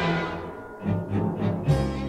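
Background music of low bowed strings: a full passage fading away, then a run of short low notes.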